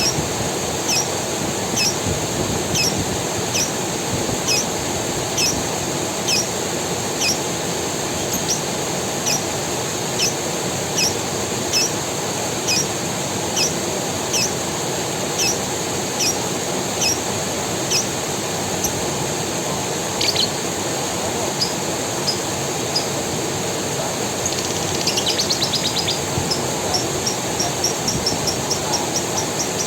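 Forest creek water running steadily, with a bird repeating a short high chirp about once a second. Late on a brief trill breaks in, and the chirps then come faster, several a second.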